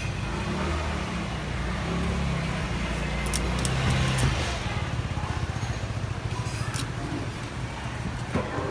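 A heavy knife cutting through a whole salmon behind the gills to take the head off, with a few sharp clicks, over a steady low hum.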